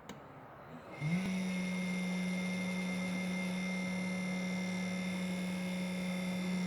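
Fan on a Monoprice Maker Select 3D printer starting up about a second in: its pitch glides briefly upward, then it settles into a steady, loud hum with a high whine above it. This is the weird noise the fan is making.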